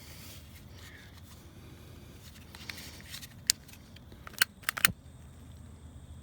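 A few sharp metallic clicks and clinks, a single one about three and a half seconds in and a quick cluster near the end, over a steady low background hum.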